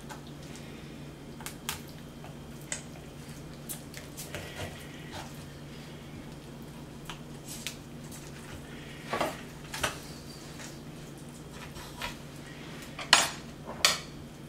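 Scattered light knocks and clinks as hands work a whole stuffed snapper on a wooden cutting board, lacing kitchen twine through its head to tie it shut. The two sharpest clicks come close together near the end, over a steady low hum.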